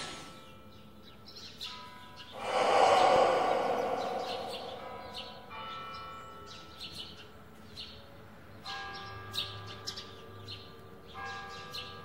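Bell-like chimes in a relaxation soundtrack: a loud ringing tone swells about two and a half seconds in and dies away, followed by quieter held chime tones, with short bird chirps scattered throughout.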